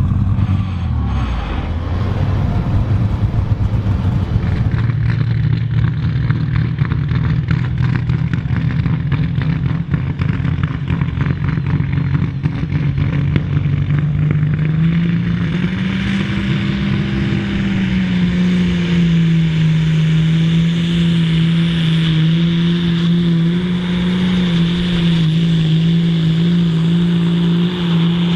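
Super Stock pulling tractor's turbocharged diesel engine running hard at high revs under load. Its pitch climbs about halfway through and then holds steady, with a rising hiss over the top.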